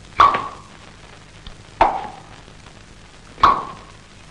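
Three slow, evenly spaced knocks about a second and a half apart, each with a short ringing tone after it, made as the heavy footsteps of a walking shadow in a told horror story.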